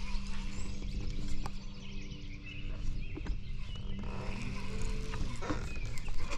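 Steady hum of a boat motor, which stops about five seconds in, with birds chirping in the background.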